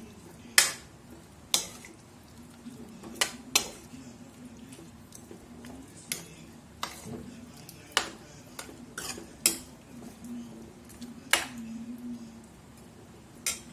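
Steel ladle stirring thick chicken curry in a steel kadai, clinking sharply against the pan about ten times at irregular intervals.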